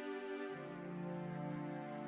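Slow, sad-sounding background music of sustained instrumental chords, with a new lower note coming in about half a second in.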